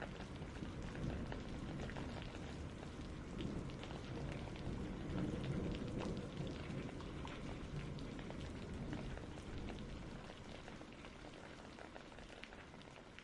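Rain falling steadily, with many small drop patters and a low rumble that swells in the middle. The whole thing slowly fades toward the end.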